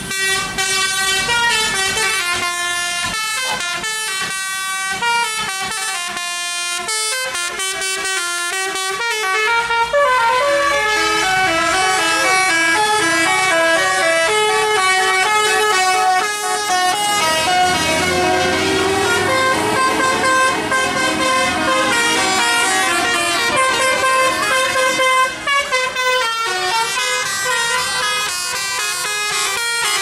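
Telolet multi-tone bus air horns playing tunes, with several notes sounding together and stepping from pitch to pitch. Bus engine noise runs underneath through the middle stretch.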